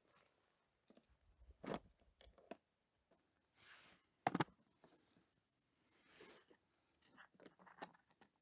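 Quiet handling noises: sparse clicks and light knocks with a few brief soft rustles, the loudest a sharp knock about four seconds in.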